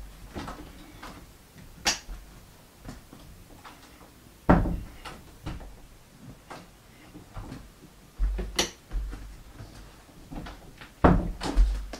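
An interior door being opened and shut by its lever handle: latch clicks and knocks at intervals, the loudest about four and a half seconds in.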